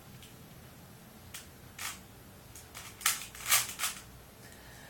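Rubik's cube layers being turned by hand: a series of short plastic clicks and clacks, about six in all, the loudest three close together near the end.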